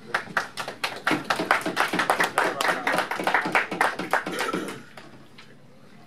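A small group clapping by hand, dying away about five seconds in.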